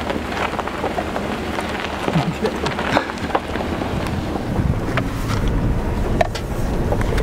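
A vehicle driving on a dirt and gravel road, heard from inside the cabin: a steady road-and-engine rumble with the small crackle of gravel under the tyres. The rumble grows louder about four and a half seconds in.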